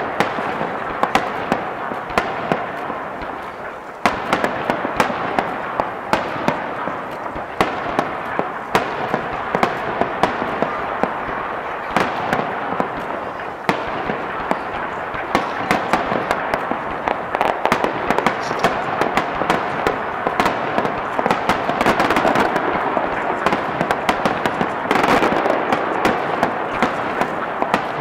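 Aerial firework shells bursting one after another: sharp bangs and cracks in quick succession over a continuous crackling rush.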